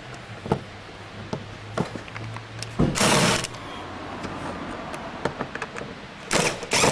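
Cordless power screwdriver running in two short bursts, about three seconds in and again near the end, as it backs out a Phillips screw. Light clicks of the bit being fitted onto the screw head in between.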